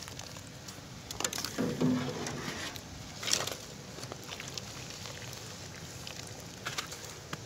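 Maple sap boiling in shallow steel evaporator pans, a steady low bubbling hiss, while a metal can scoop knocks against the pans a few times and pours sap from one pan into another. A brief low hum sounds about two seconds in.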